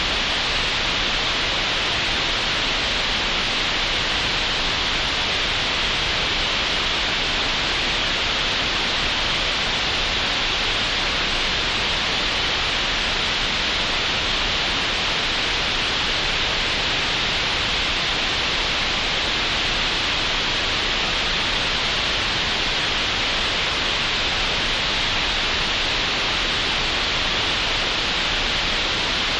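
Synthetic green noise generated in Audacity: a steady, unchanging hiss, strongest in the upper middle range and cut off sharply above the top treble.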